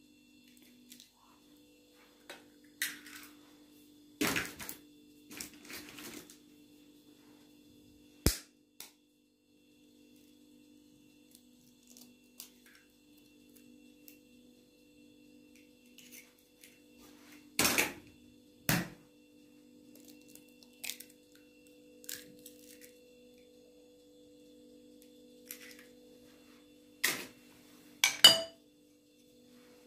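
Scattered knocks, clicks and clatters of kitchen work over a steady low hum; the loudest are a pair of knocks about two thirds of the way through and a short metallic rattle near the end.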